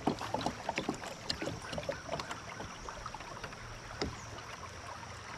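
River water lapping and splashing against a kayak's hull, with many scattered small clicks and knocks, one sharper knock about four seconds in.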